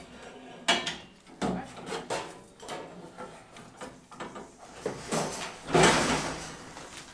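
Irregular knocks and scrapes as a big Boer goat buck is moved through livestock handling gear: a few sharp knocks in the first two seconds and a longer, louder scrape about six seconds in.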